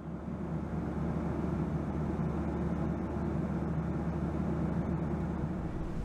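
A steady, low engine drone with a rushing noise over it.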